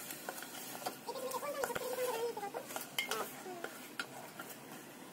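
Wooden spatula stirring and knocking against an aluminium pot as fish heads fry with a light sizzle, several sharp clicks scattered through. A faint wavering call sounds in the background in the middle of the stretch.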